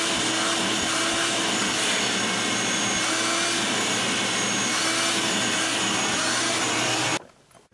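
Vacuum cleaner running steadily while its hose nozzle is worked over a car's floor carpet. The noise cuts off suddenly near the end.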